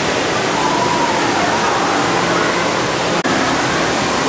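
Steady rushing and bubbling water from an aquarium tank's waterfall or aeration, with faint voices behind it.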